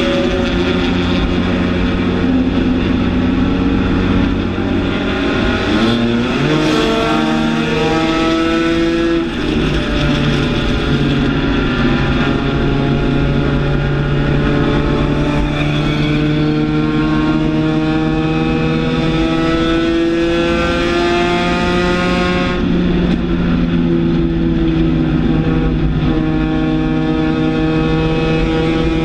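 Race car engine heard from inside the cockpit, running hard at high revs. Its pitch climbs gradually, drops sharply about six seconds in and again about twenty-two seconds in, then climbs again.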